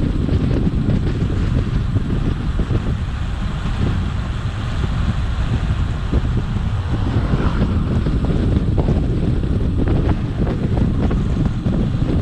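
Wind buffeting the microphone: a loud, steady, low rumbling rush with no pauses.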